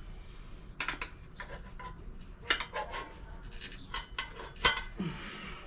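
Steel tire irons clinking and scraping against a dirt bike's wheel rim while the tire is levered over it, in several irregular sharp metallic clanks. The loudest comes near the end.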